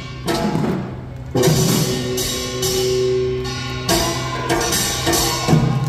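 Korean traditional dance music with drumming. The drums thin out about a second in, then come back under long held notes, and strokes pick up again near the end.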